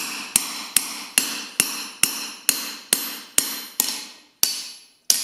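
Hand hammer striking a steel slot punch driven into a red-hot flat bar on the anvil, punching a slot for a mortise: a steady run of about a dozen ringing metal blows, roughly two or three a second, slowing slightly near the end.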